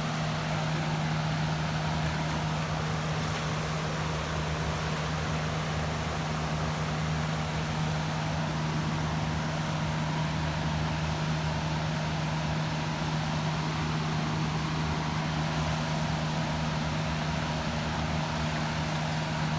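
Steady rushing of river water below a dam, under a constant low hum.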